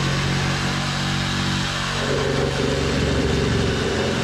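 Reciprocating saw running steadily as its blade cuts through a wooden floor joist; the tone of the saw changes about two seconds in.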